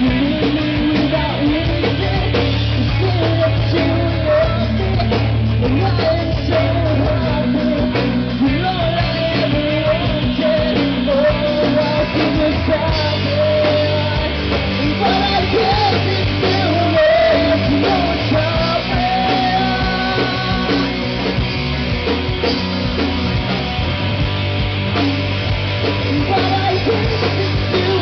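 Live rock band playing through a PA: electric guitars, bass and drums, with lead vocals singing over them.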